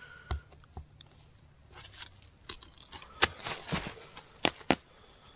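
Tinder and kindling being handled to lay a fire: scattered dry crackles and clicks, thickening in the second half into a run of sharper ticks and snaps.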